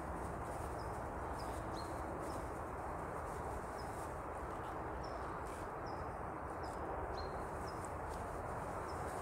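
A small bird calling over and over with short, high chirps, one every half second to a second, over a steady background hiss.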